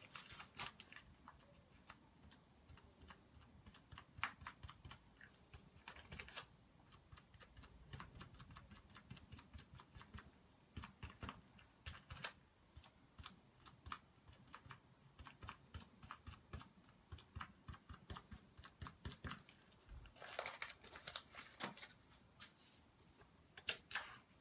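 Faint, quick light taps and dabs of a gloved hand working on a small painted card, with a few brief hisses, the longest about 20 seconds in.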